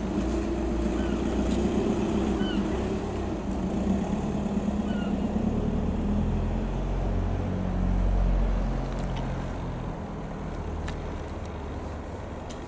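Helicopter flying past, its rotors giving a steady pulsing throb. The sound swells about eight seconds in and then fades as the helicopter moves away. A few short bird chirps sound in the first half.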